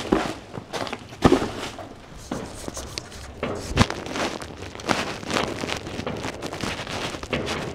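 Plastic bubble-wrap packaging rustling as a cardboard box is pulled out of it and handled, with a few sharp knocks: the loudest about a second in, another near four seconds.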